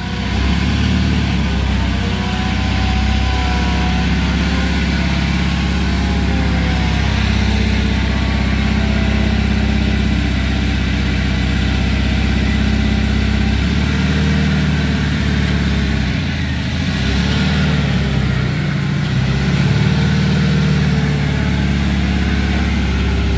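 Small engine of a homemade mini crane's power unit running steadily while the crane slews with a suspended load. Its note wavers and shifts several times as the hydraulics take up load.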